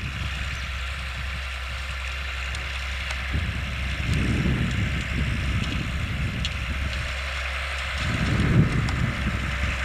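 Steyr 8130 Turbo tractor's turbo diesel engine running steadily under load while pulling a tillage implement, its engine side panels removed. Wind on the microphone adds a rumble that swells around the middle and near the end.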